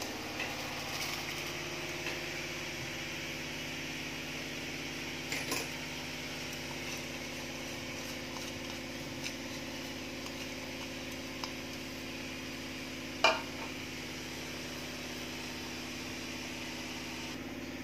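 A large pot of spiced water at a rolling boil on a gas stove, a steady hum and hiss, while soaked basmati rice is tipped in from a bowl. There are a few light knocks, and one sharp clink with a short ring about 13 seconds in.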